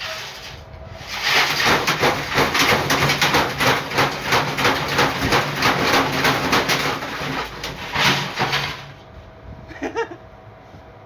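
Battery-powered, modified washing machine running hard: a rapid, rhythmic banging and rattling over a steady motor hum, starting about a second in and cutting off after about eight seconds, followed by a few lighter knocks.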